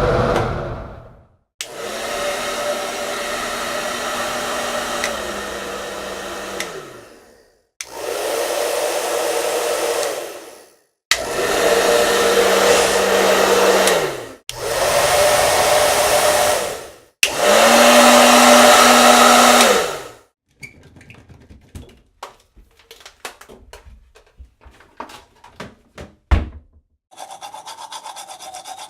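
Hand-held hair dryer switched on and off five times, each run a few seconds of rushing air over a motor hum that drops a step in pitch before it cuts off. Then scattered light clicks and a single thump, and near the end the start of a rhythmic toothbrush scrubbing.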